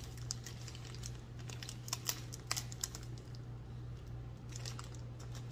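A plastic snack wrapper crackling and tearing as it is opened by hand: irregular sharp crinkles and clicks, over a steady low hum.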